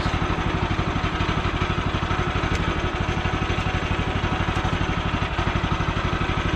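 Sawmill's engine idling steadily with an even, rapid pulse.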